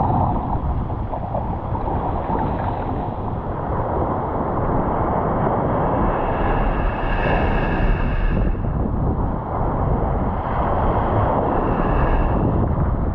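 Wind rumbling on the microphone over surf washing on the beach, a steady noise with no breaks.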